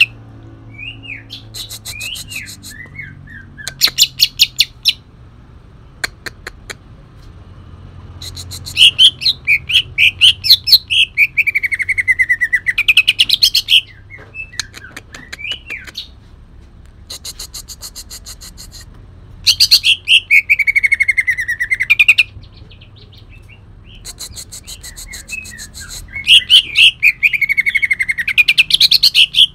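Green leafbird (Bornean cucak ijo) singing in loud bursts of rapid, harsh repeated notes mixed with falling whistles, with quieter scattered calls between the bursts. These rough, fast bursts are what bird keepers call 'tembakan kasar'.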